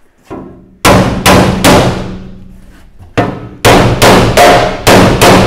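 Hammer blows struck up against the underside of a metal recovery truck body to knock a dent back out: three quick blows about a second in, then six more from about three seconds, each ringing on in the metal.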